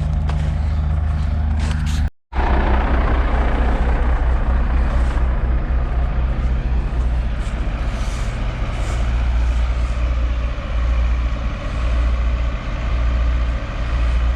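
Farm vehicle engine running steadily with a low hum, broken by a brief dropout about two seconds in, after which there is more engine and road noise.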